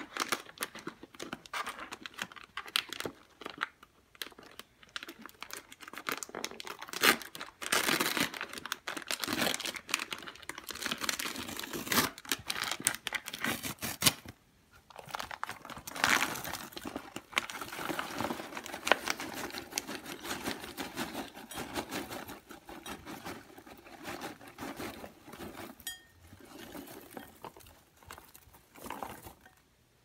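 Microwave popcorn packaging crinkling and rustling as it is handled, in irregular spells of dense crackle with short pauses between them.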